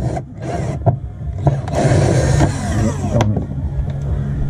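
Rustling and handling noise close to the microphone in irregular hissy bursts with a few sharp clicks, over a steady low hum.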